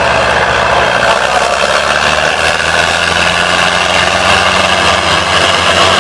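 Diesel engines of two farm tractors running hard under heavy load in a tug-of-war, a steady low drone that shifts pitch slightly about a second in.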